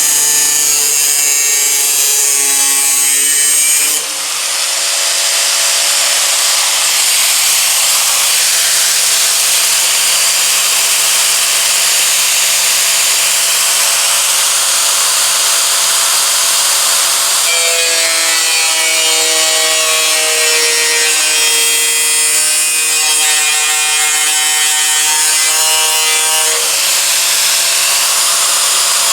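Power tool cutting through the hood's sheet steel to remove a rusted section: a steady loud cutting hiss with a tool whine that rises and falls in pitch as it bites and eases, dipping briefly about four seconds in.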